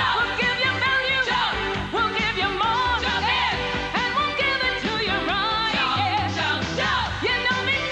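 Upbeat pop jingle from a Toyota dealers' TV commercial: a sung melody with gliding notes over a pulsing bass line.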